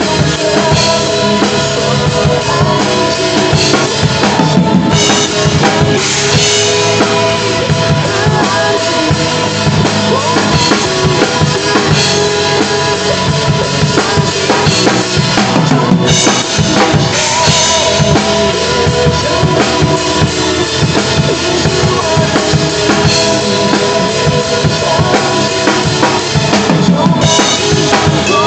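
Acoustic drum kit played live, with kick, snare, toms and cymbals, along with a recorded instrumental backing track of a pop ballad. The cymbal wash drops out briefly three times.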